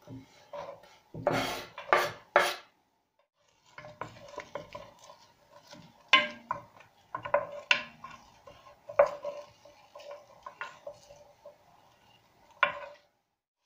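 A knife scraping chopped red onion off a wooden cutting board into a terracotta pot, several quick strokes in the first couple of seconds. Then a wooden spoon stirring the onion in oil, scraping and knocking irregularly against the terracotta pot.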